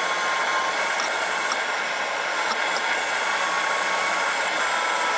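A power tool spinning a 3M paint-and-rust stripping disc against the steel of a pipe wrench, stripping paint and rust down to bare metal: a steady hiss with a high whine.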